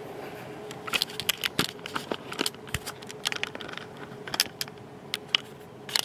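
Irregular small clicks and taps of a camera being handled and set in place, over a faint steady hum.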